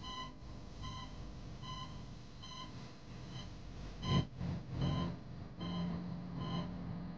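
Operating-room patient monitor beeping steadily, one short high beep about every 0.8 seconds. A low thud comes about four seconds in, and a low steady hum joins in the second half.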